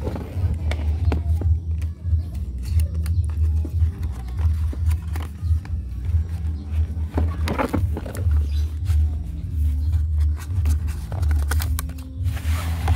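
Hard plastic tool case being handled and slid out of its cardboard sleeve: scattered scuffs, taps and cardboard rustles, with a longer scrape about seven and a half seconds in and again near the end. A steady low rumble runs underneath.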